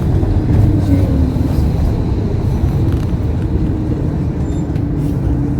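Coach engine and road noise heard from inside the passenger cabin: a steady low rumble with a faint whine above it.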